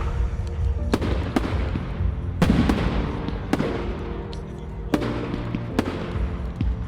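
Display fireworks bursting overhead: about seven sharp bangs, roughly a second apart, each trailing off in a short echo, over music playing throughout.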